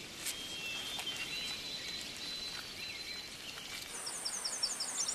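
Forest ambience with faint, scattered bird chirps; about four seconds in, a high, rapid trill of short repeated notes sets in over a thin, steady high tone.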